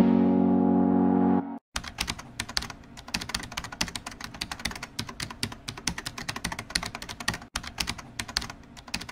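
Music that stops about a second and a half in, followed by a rapid, irregular clatter of computer-keyboard typing clicks: a typing sound effect for animated title text.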